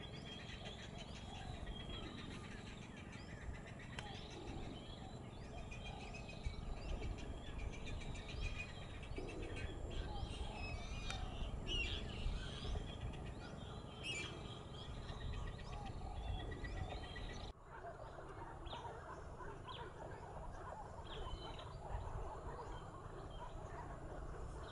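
Many birds chirping and calling in short repeated notes over a steady low rumble, with an abrupt change in the background about two-thirds of the way through.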